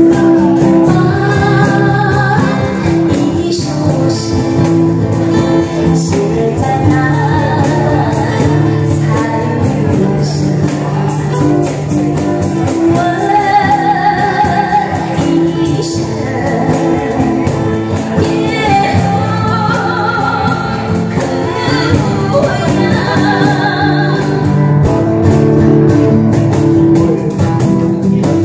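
Live band performance: a woman sings lead into a microphone over acoustic guitar, electric guitar and cajon. Near the end the singing stops and the guitars and cajon carry on.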